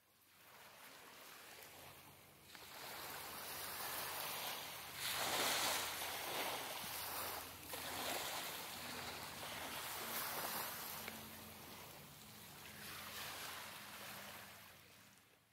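Small waves breaking and washing over a pebbly shore, surging and ebbing every few seconds, with a faint steady low hum underneath. The sound fades in at the start and fades out at the end.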